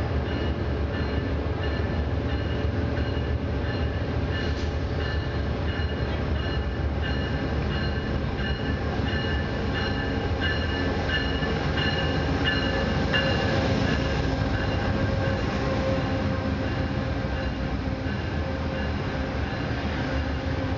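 Amtrak GE P42DC diesel-electric locomotive, its V16 diesel engine running as it moves slowly past: a steady low rumble with a few steady whining tones on top, loudest about two-thirds of the way through as it comes alongside.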